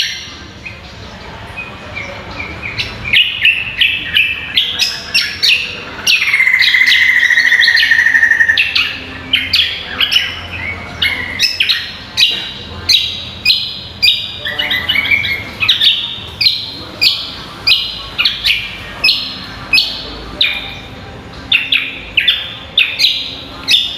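Greater green leafbird (cucak kombo) singing: a quick run of sharp, loud chirping notes, about one or two a second. About a quarter of the way in comes a long buzzing trill of two or three seconds.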